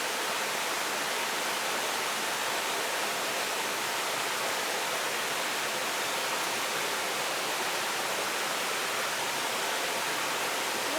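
Steady rush of flowing river water, an even hiss that holds the same level throughout.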